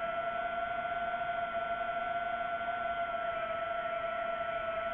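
DJI quadcopter drone's motors and propellers whining at a steady pitch, throttle held even in level flight.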